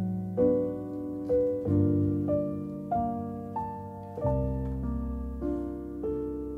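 Background music: a slow piano melody, single struck notes roughly one to two a second, each fading, over held low bass notes.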